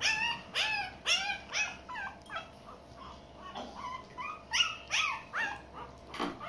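Young puppies whining in a run of short, high-pitched cries, each rising then falling, two or three a second; the cries thin out midway and pick up again about four and a half seconds in. They cry while being hand-fed from a spoon.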